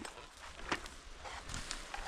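A few faint clicks and knocks over a low background, right after a chainsaw has shut off.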